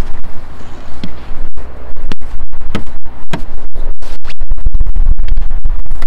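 Snow brush sweeping snow off a car's windshield: loud, irregular scratchy brushing strokes over a heavy low rumble.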